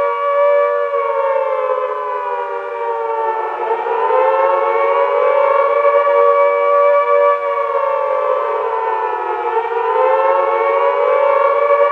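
Civil defense warning siren wailing, its pitch sinking slowly and climbing back about every six seconds, low around three seconds in and again near the end.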